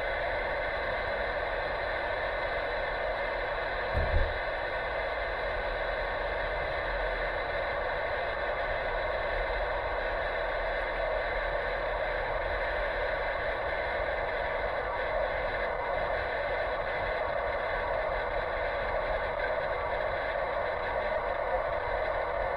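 Car driving at about 30 mph, heard from the dashcam inside the cabin: steady road and tyre noise with a low rumble, and one low thump about four seconds in, as a wheel goes over a bump.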